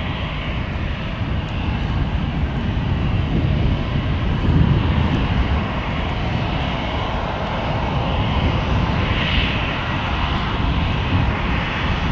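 Airbus A319 jet engines running as the airliner rolls slowly along the runway: a steady roar with a deep rumble underneath that swells briefly a little after the middle.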